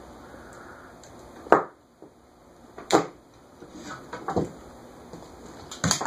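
Autumaire B36 36-inch ceiling fan running on high with a soft, steady whoosh. Four sharp knocks come about a second and a half apart, the first the loudest.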